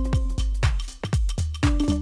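Background electronic dance music with a steady beat of punchy low drum hits under held synth tones.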